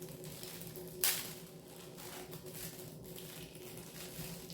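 Handling noise as a drinking straw is taken out of its packaging: faint rustling with one sharp click about a second in.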